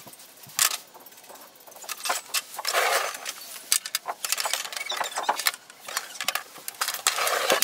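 Hands handling a power cord and USB cable on a plastic inkjet printer: scattered clicks, light knocks and rustles as the plugs and cords are moved and the printer is shifted on the table.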